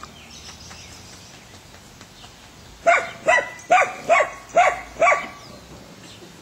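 A dog barking: six short barks in quick succession, about two a second, starting about three seconds in.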